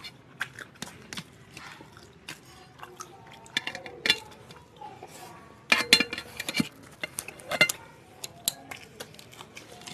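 Close-up eating sounds: fingers working rice against steel plates, with chewing and wet mouth clicks, a scatter of short taps and clicks and a louder cluster about six seconds in.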